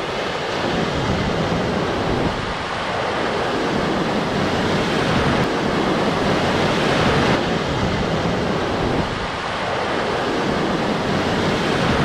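Ocean surf breaking and washing around the shallows, swelling and easing in long surges every few seconds, with wind buffeting the microphone.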